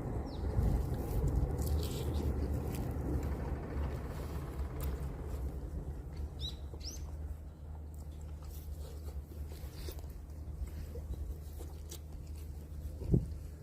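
Outdoor ambience: a steady low rumble with scattered faint clicks, and a bird giving two short chirps about halfway through. A single thump comes near the end.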